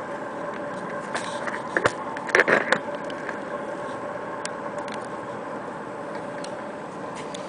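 Steady hum of a small boat's outboard motor running out on the river. A few sharp knocks and scrapes of the camera being handled come between about one and three seconds in, louder than the hum.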